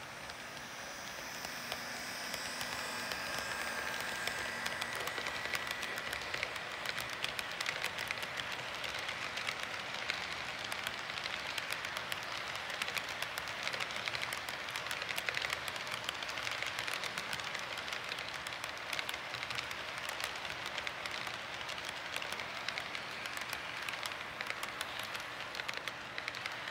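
HO scale model freight train rolling past: a steady metallic rattle of wheels on the track with rapid clicks over the rail joints, growing louder over the first few seconds and then holding.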